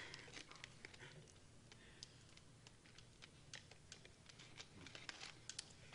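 Near silence with faint, irregular clicks and ticks of plastic soda bottles being handled and drunk from.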